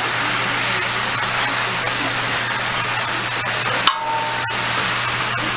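Meat rolls sizzling on a flat-top steel griddle: a steady hiss over a low hum, with faint voices in the background. The sound breaks off for a moment about two-thirds of the way through.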